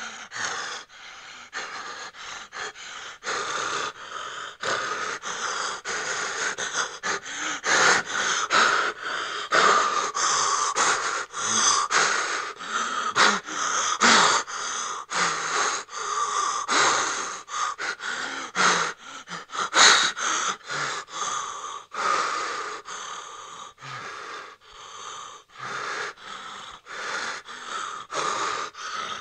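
A person breathing hard and fast in fright: ragged gasping breaths in and out, about two a second, without a break.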